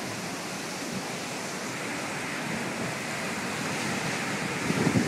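Steady rushing noise of a microburst: heavy rain driven horizontally by winds estimated at about 65 mph, with the wind hitting the microphone.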